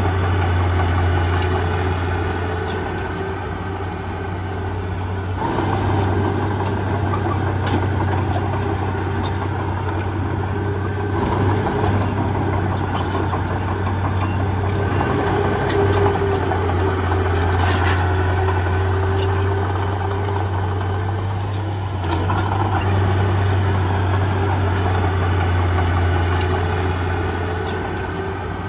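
Heavy diesel engine of earthmoving machinery running steadily with a deep hum, its note shifting slightly a few times, with scattered light clinks.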